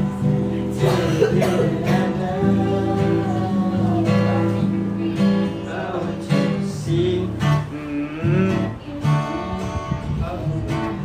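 Acoustic guitar being strummed, with a voice singing over it in places.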